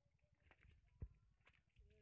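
Near silence, with one sharp knock about a second in.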